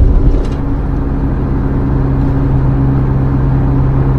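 Vehicle engine and road noise heard from inside a moving vehicle: a steady low drone with a constant hum, and a low bump right at the start.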